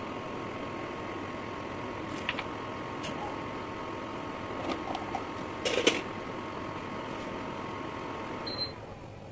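Steady background hiss with a few light clicks and crackles as cooking oil heats in a karai, the loudest just under six seconds in. Near the end comes a short high beep, and the hiss drops away.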